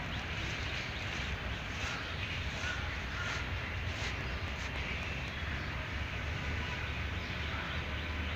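Outdoor street ambience: a steady low traffic rumble, with birds calling now and then over it.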